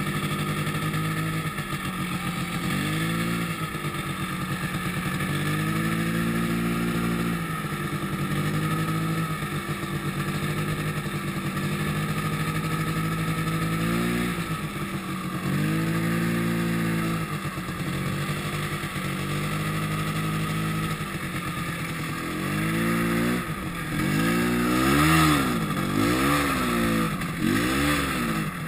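Yamaha snowmobile engine running under way, its note rising and falling as the throttle is opened and eased. In the last few seconds it revs up and drops back quickly several times, about once a second.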